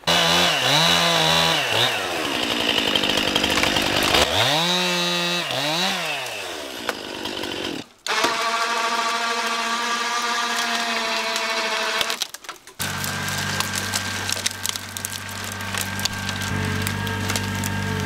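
A chainsaw revving up and down as it cuts dead wood. After an abrupt break about eight seconds in, an engine runs at a steady high pitch. From about thirteen seconds a lower, steady engine drone, the tractor working its winch, runs under scattered sharp snaps.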